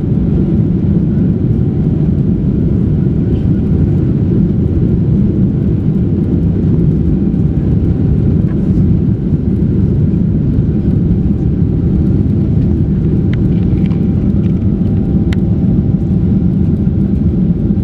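Steady low rumble of a Boeing 777-300ER's GE90 jet engines and airflow, heard inside the cabin as the airliner climbs out after take-off.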